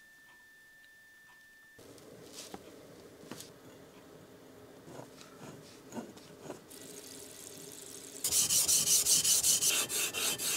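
Steel plane iron from a Stanley No 10 hand plane rubbed back and forth on a flat abrasive sharpening surface: loud, rapid, regular strokes, about four a second, starting a little over 8 seconds in. Before that come quieter clicks and light scraping of metal plane parts being handled and fitted.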